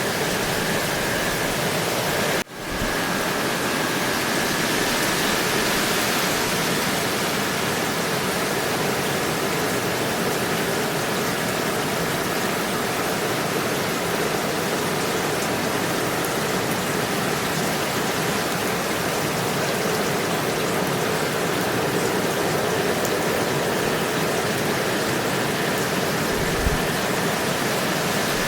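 Steady, even rain noise, with a brief dip in level about two and a half seconds in.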